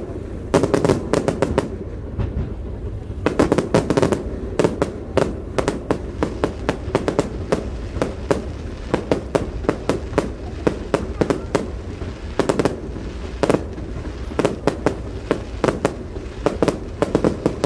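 Fireworks bursting low over the sea: rapid, irregular volleys of sharp bangs and crackles, bunched into dense clusters.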